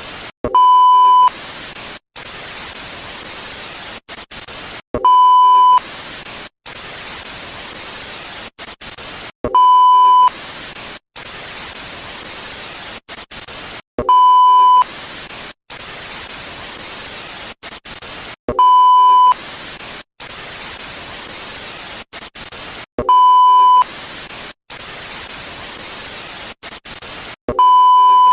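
Television static hiss, interrupted seven times, about every four and a half seconds, by a loud steady 1 kHz test tone lasting well under a second, like the reference tone that goes with colour bars. The hiss also cuts out briefly to silence here and there.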